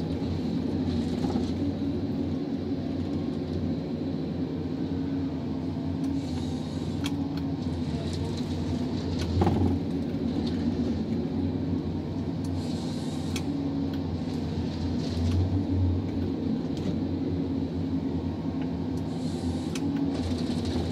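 John Deere 1270G harvester heard from inside its cab: the six-cylinder diesel engine runs steadily with a constant hum while the hydraulics and H480 head work a felled tree, with occasional knocks and a saw cut through the stem near the end.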